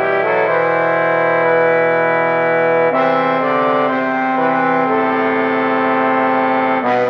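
A trombone ensemble in four parts playing loud: the two upper trombones move through a melody over long chords held by the lower two. The chord changes about three seconds in and again near the end.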